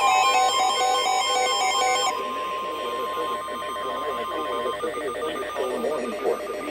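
Pulsing electronic alert beeps, then a steady single-pitch NOAA Weather Radio warning alarm tone over radio hiss for a few seconds, cutting off shortly before a broadcast voice begins.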